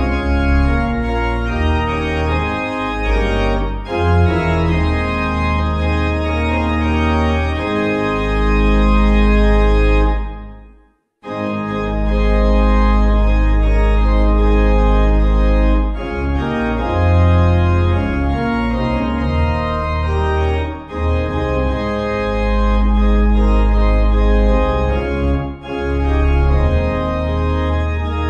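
Organ music playing slow, sustained chords with long held bass notes. It breaks off briefly about ten and a half seconds in, then starts again.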